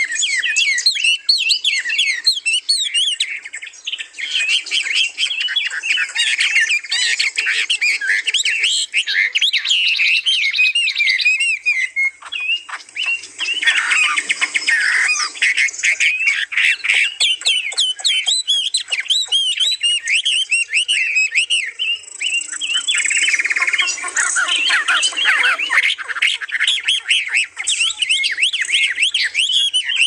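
Several songbirds singing and chirping at once: a dense, continuous chorus of overlapping twitters and whistled phrases, with a run of fast, short repeated notes around the middle.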